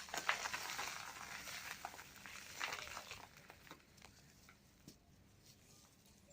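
Dry cement balls and cubes crushing and crumbling: a crackly crunch with scattered sharp cracks, dying down to a few faint crackles after about four seconds.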